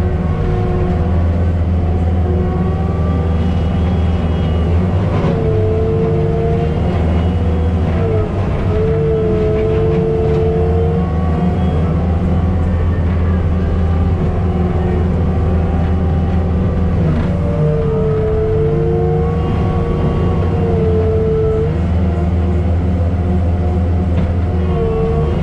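Takeuchi TL12R2 tracked skid steer with an FAE forestry mulcher head running at work: a steady diesel drone with a higher whine that rises and falls in pitch several times as the load changes.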